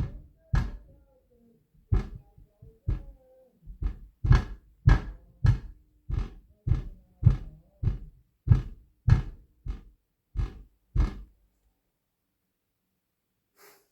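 Heavy footstep stomping on a floor in the adjoining unit, heard through the building as deep thuds about once every half second. The stomping stops about 11 seconds in.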